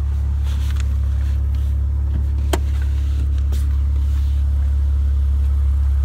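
Maserati Levante Grand Sport S's 3.0-litre twin-turbo V6 idling with a steady low hum, and one sharp click about two and a half seconds in.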